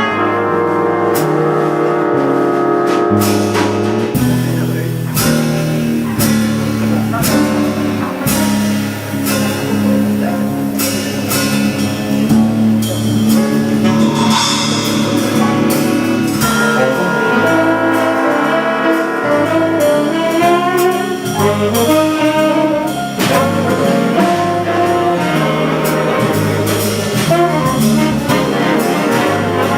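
Jazz big band playing a slow piece, the brass and saxophone sections voicing held and moving chords over drum kit, with frequent cymbal strokes.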